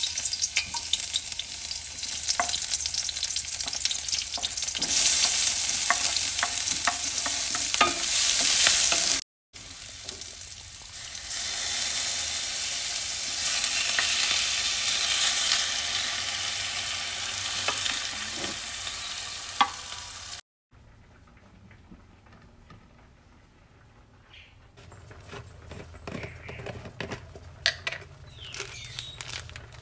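Sliced shallots, then raw squid, frying in hot oil in a wok, with a loud steady sizzle and stirring. After about 20 seconds the sizzle cuts off, leaving only light clicks and rustling as a plastic tub of seasoning sachets is handled.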